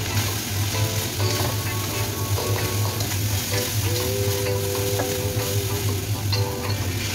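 Food stir-frying in a wok: a steady sizzle of hot oil, with the stirring tool scraping and ticking against the pan.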